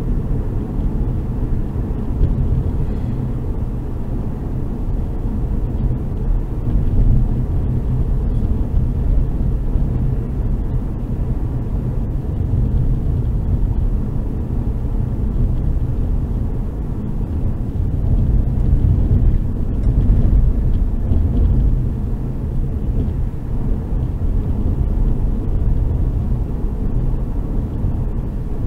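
Steady road and engine noise of a Hyundai i30 driving at road speed, heard from inside the cabin: a continuous low drone that swells slightly now and then.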